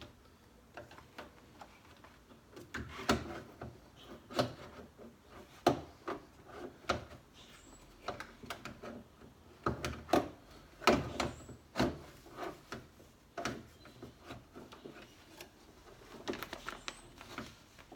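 Irregular clicks, knocks and rubbing of a replacement door lock actuator being worked by hand into place inside a 2013 Lexus ES350 driver's door shell, plastic and metal parts bumping against each other.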